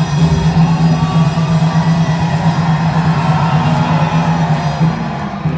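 Music over loudspeakers, with one low note held steadily and ending near the end, over a large crowd cheering and shouting.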